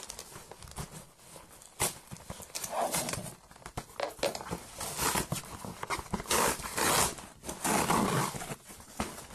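A cardboard shipping box being opened by hand: a run of knocks and clicks with several longer scraping, tearing bursts, loudest in the second half.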